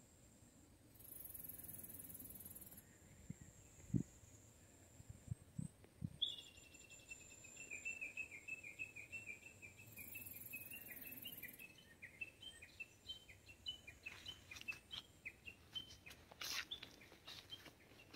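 A bird calling a long run of rapid repeated notes that starts a little higher, settles lower and goes on for several seconds, over a faint high insect buzz that comes and goes. A dull thump about four seconds in, and footsteps rustling in dry grass near the end.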